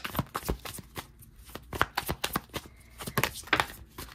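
Tarot cards being handled: an irregular run of crisp card flicks and taps.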